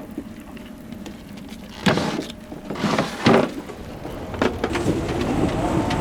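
Winter storm of sleet and wind: a steady hiss of falling precipitation, broken by several loud rushes of noise between about two and four and a half seconds in, and a wavering whistle over louder noise near the end.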